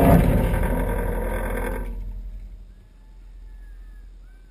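The tail of a Tannerite explosion under a car: the blast's loud roar, with debris flying, dies away over about two seconds into a low fading rumble. A few faint chirps, likely birds, come near the end.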